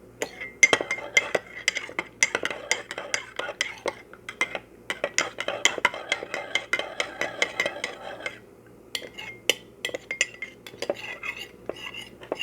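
A spoon stirring honey and cinnamon into warm water, clinking rapidly against the side of the vessel as the honey dissolves. The clinks thin out about eight seconds in.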